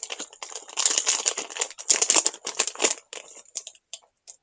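Small clear plastic bag crinkling as it is opened and handled to take out a wiring harness, crackling in clusters for about three seconds, then a few small clicks as the harness is taken out.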